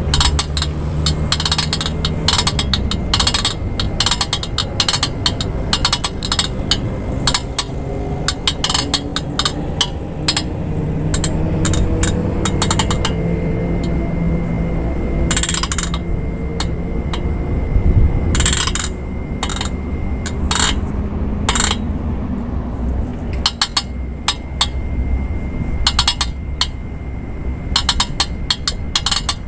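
Repeated metallic clicks and clinks from an outdoor gym twister machine, its rotating foot discs and pivots worked by someone twisting on it.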